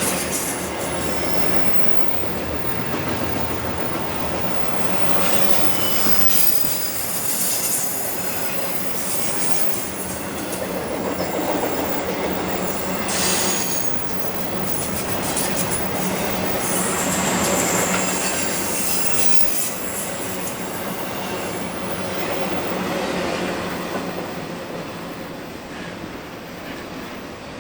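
Intermodal freight train's cars rolling past, steel wheels clattering over the rail with high-pitched wheel squeal at times; fading near the end.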